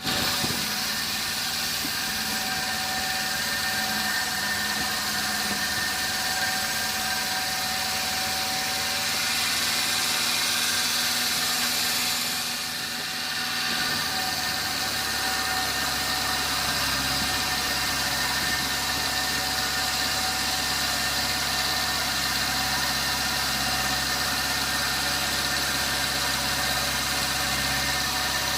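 Sawmill machinery running: a steady mechanical drone with several held whining tones. About halfway through the sound dips briefly, and a heavier low hum then comes in and stays.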